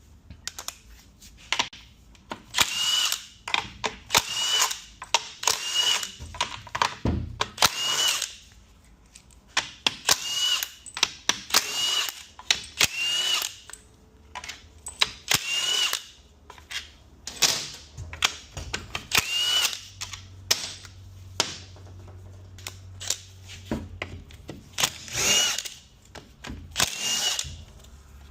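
A handheld power driver spinning out bolts from a 6F35 transmission case during teardown. It runs in many short bursts about a second apart, each ending in a brief rising whine, with tool and bolt clatter in between.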